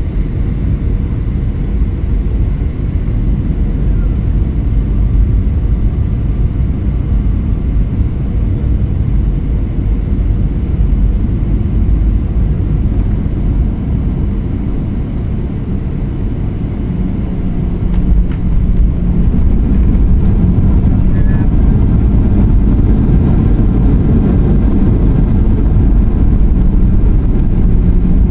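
Cabin noise of a Boeing 737-800 landing, heard beside its CFM56-7B engine: steady engine and airflow noise. It grows louder and gains a low steady tone about two-thirds of the way through, as the aircraft touches down and the engines spool up for reverse thrust.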